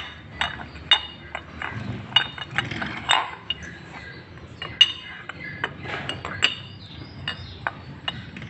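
Two motorcycle intake manifolds, a cheap one and an expensive one, being handled and set down against each other and the work surface: irregular sharp clinks and taps, some with a brief metallic ring.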